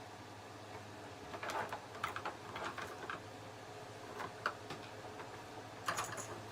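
Gun-cleaning tools and small metal parts being rummaged through: scattered light clicks and clinks in short clusters, starting a little over a second in, over a steady low hum.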